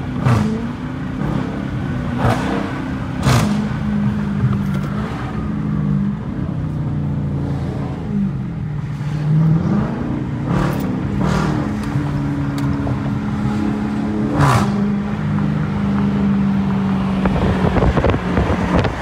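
Dodge Challenger R/T's 5.7-litre Hemi V8 running at low revs in slow traffic, heard from inside the cabin. Its pitch sags and climbs a few times with speed, and a few short sharp noises sound over it.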